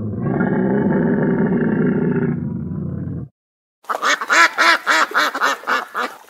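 A Bactrian camel's long, low groaning call lasting about three seconds. After a short gap comes a ruddy shelduck's rapid run of nasal honking calls, about four a second.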